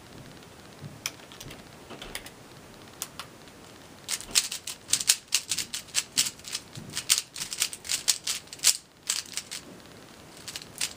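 Zhanchi Silk 3x3 speedcube being turned by hand: a few separate clicks, then from about four seconds in a fast run of clicking and clacking layer turns, as when scrambling the cube, with a short pause near the end.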